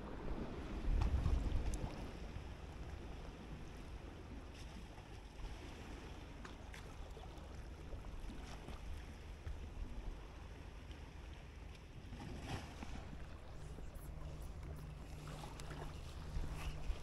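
Wind on the microphone, with a low gust about a second in, over a faint, steady engine hum. Near the end come small clicks and rubs from handling a spinning reel.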